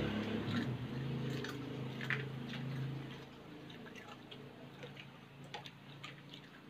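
Quiet eating sounds: chewing and soft squishing, with scattered light clicks of a plastic spoon in a soup bowl. A low hum is heard through the first three seconds, then fades out.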